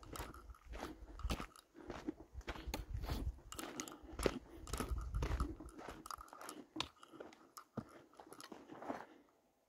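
Footsteps crunching on a gravelly dirt trail, a steady run of short crunches, with a low rumble on the microphone during the first six seconds. The steps cut off abruptly near the end.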